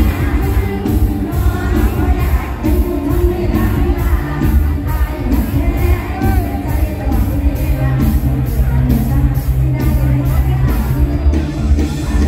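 Live mor lam band playing loud through a concert PA: a singer over heavy bass and a steady cymbal beat, with the beat dropping out for a moment near the end.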